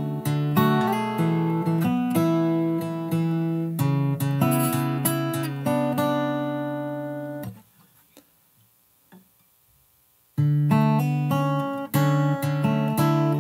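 Acoustic guitar with a capo, fingerpicked note by note in a slow, steady passage. It stops about seven and a half seconds in, leaves about three seconds of near silence, and then starts again.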